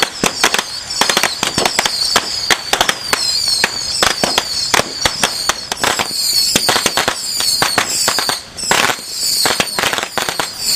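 Firecrackers going off in a rapid, irregular barrage of sharp bangs and cracks.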